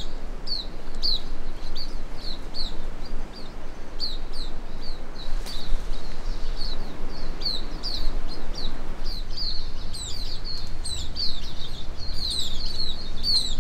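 Small birds chirping, many short high calls overlapping several times a second and getting busier near the end, over a low steady rumble.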